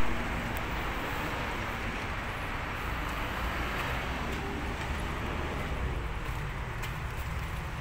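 Steady low vehicle rumble under a hiss of outdoor background noise, with no clear rises or stops.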